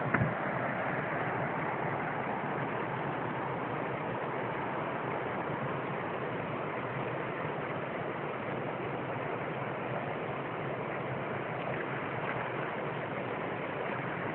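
Steady rush of white water pouring over a river weir, with a single sharp knock just at the start.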